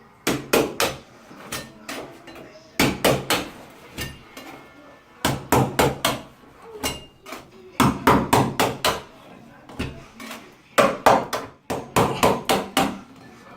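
Hammer blows in quick runs of several strikes, six runs spread a second or two apart, knocking the old wall-mounted sink to break its seal and free it from its bracket.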